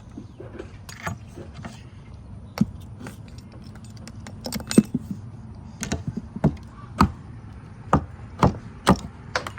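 Irregular sharp clicks and metallic knocks from handling boards and pulled nails during nail removal, coming more often in the second half.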